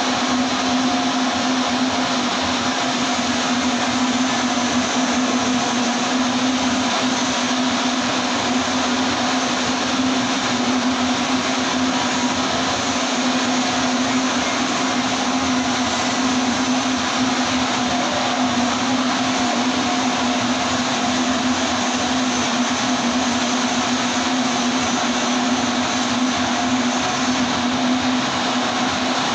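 TIG welding arc and welding machine: a steady electrical buzzing hum with a hiss over it, unbroken throughout.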